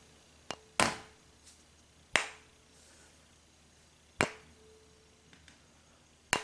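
Fine-silver tuning fork struck four times, each a sharp tap followed by a faint, short-lived tone at one steady pitch; there is really not much sound from it.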